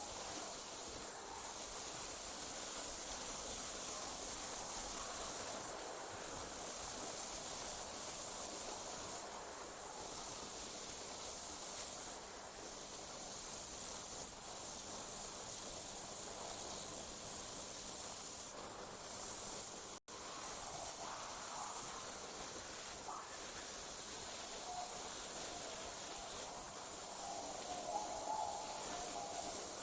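Crickets trilling in a continuous high-pitched chorus of night insects, with short breaks every few seconds.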